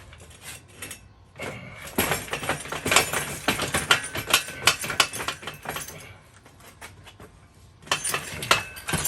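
Bicycle chain of a recumbent tandem trike rattling and clinking as it is handled and pulled off, with a dense stretch of rapid metallic clicks, a lull, and a second short burst near the end.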